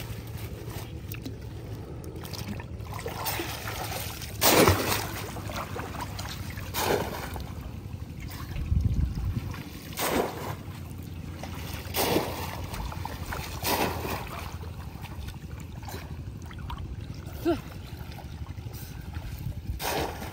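Water splashing and sloshing as a bamboo polo fish trap is plunged and worked in shallow pond water by a person wading, with about seven separate splashes, the loudest about four seconds in.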